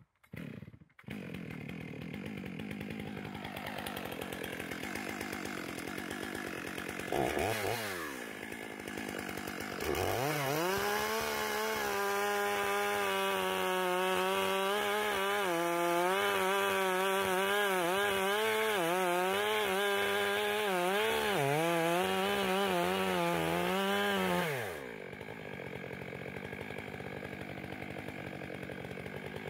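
Gas chainsaw idling, revved briefly about seven seconds in, then run at full throttle cutting through a large log for about fifteen seconds, its pitch wavering as the chain loads up in the wood. It then drops back to idle near the end.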